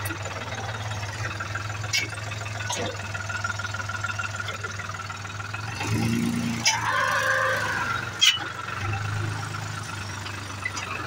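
Tractor diesel engine running steadily while pulling a trolley heaped with wet earth, with a few sharp knocks and rattles. A brief rising-and-falling tone sounds about seven seconds in.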